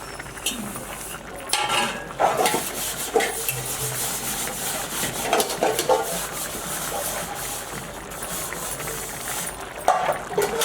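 Food sizzling in a cooking pot while a metal spoon stirs it, with scattered knocks and scrapes of the spoon against the pot.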